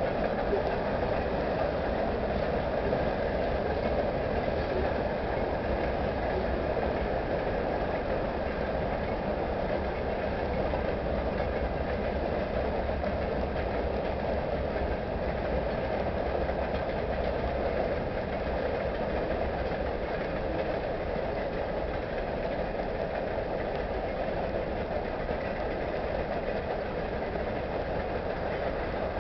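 Manifest freight train's cars rolling across a bridge at steady speed: continuous wheel-on-rail noise that holds level throughout.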